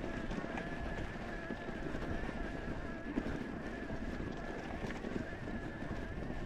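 Mountain bike rolling over rocky desert singletrack: the tyres make a steady rumble on gravel and dirt, mixed with wind on the microphone.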